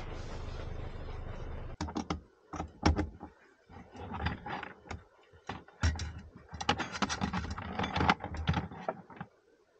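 A steady vehicle running noise with a low hum cuts off abruptly under two seconds in. It is followed by irregular clicks, knocks and rustles of objects being handled, which stop near the end.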